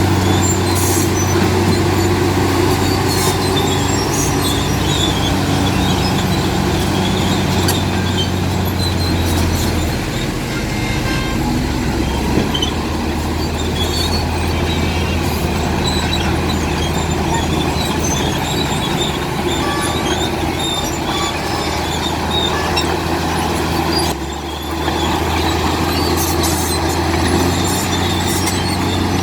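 Komatsu D65P crawler bulldozer's diesel engine running under load, a steady low drone with metallic clicks and squeaks from its tracks and the stone. The engine note shifts about ten seconds in and dips briefly near the end.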